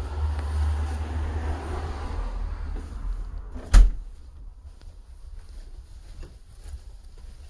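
A low rumble, then a single loud bang about four seconds in as the wooden front door is shut. After the bang the rumble is gone and only faint light taps remain.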